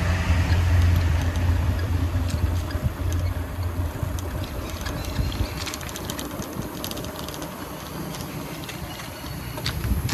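A motor vehicle's engine running close by, a low steady hum that dies away after about four seconds, followed by a few light clicks.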